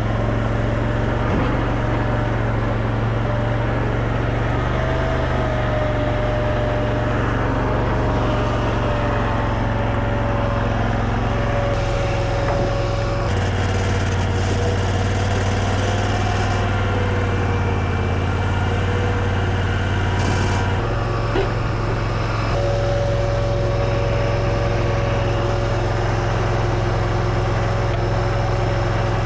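Mini stand-up skid steer's engine running steadily, with a higher whine over it that wavers in pitch. The engine note shifts once a little before halfway through and again about two-thirds in, as the load or throttle changes.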